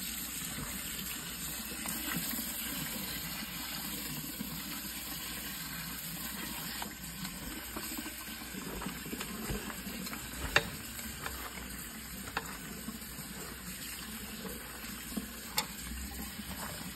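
Kitchen faucet running a steady stream of water into a steel pot of soaked pinto beans while a hand stirs and rinses them, with a few sharp clicks in the second half.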